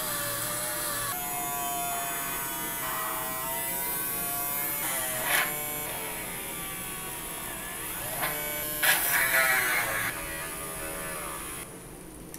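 Small brushed DC motor running with a buzzing whir, its pitch shifting and gliding as the rod in its shaft coupler is handled, then cutting off suddenly near the end.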